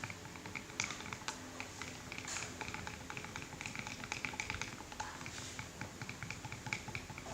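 Glue and water being stirred in a container, the stirrer clicking and tapping irregularly against its sides and bottom.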